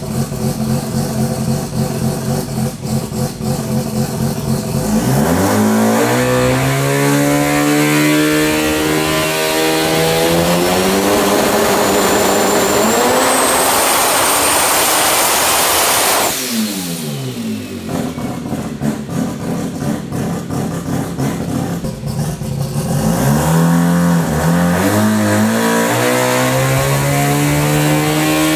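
Turbocharged Mazda 13B two-rotor rotary engine in a Toyota Starlet on a hub dyno. It runs steadily, then revs up under load for about ten seconds with a high whistle climbing along with it, and cuts off sharply just past the middle. The revs fall back, then climb again in the last third and hold at a higher speed.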